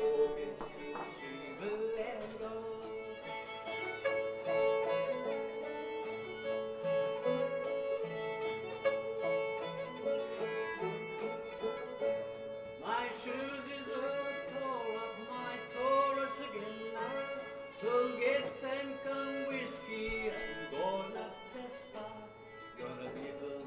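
Old-time string band playing a tune live: a fiddle leads, sliding into notes, over plucked-string accompaniment.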